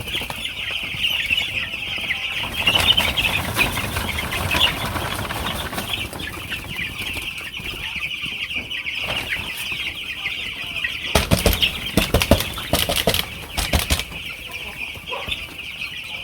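A flock of broiler chickens calling together in a steady high chorus, with a run of loud wing flaps about two-thirds of the way through.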